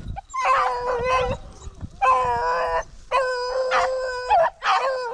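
Small scent hounds baying in drawn-out, howling calls, four in a row: hounds giving tongue while they hunt rabbits in cover.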